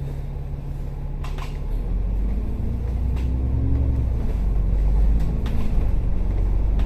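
Public bus running, heard from inside the cabin: a steady low engine hum that changes about two seconds in to a deeper, louder rumble as the bus gets under way, with a few brief rattles.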